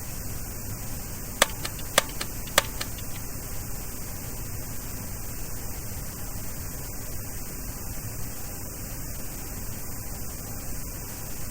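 Steady hiss in a Boeing 737-800 cockpit during pushback, with three sharp clicks about half a second apart, starting about a second and a half in.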